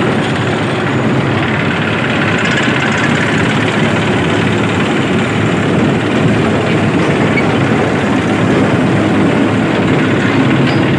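Tractor engine running steadily under load, turning the PTO shaft of a tractor-mounted mud loader as it throws soil into a trolley. It is a dense, even mechanical noise that stays level throughout.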